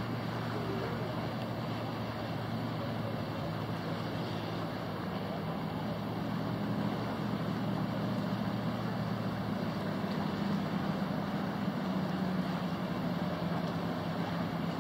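Steady low drone of a motor yacht's engines cruising past, swelling somewhat louder through the middle, over a wash of wind and lapping water.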